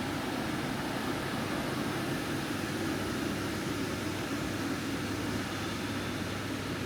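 Steady hum of a large supermarket's air conditioning and refrigeration, an even rushing noise with a low drone underneath and no clear voices.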